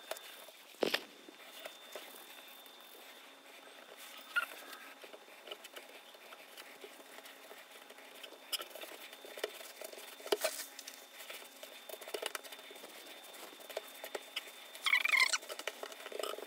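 Hands pressing, patting and rolling soft semolina makrout dough on a countertop: quiet scattered pats and taps, with a sharper knock about a second in.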